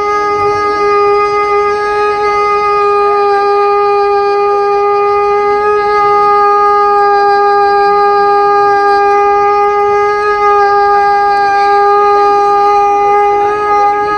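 Conch shell (shankh) blown in one long, steady note, held without a break.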